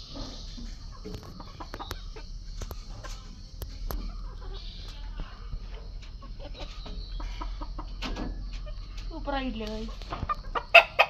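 Chickens clucking, with a longer drawn-out call about nine seconds in. A few sharp clicks near the end are the loudest sounds.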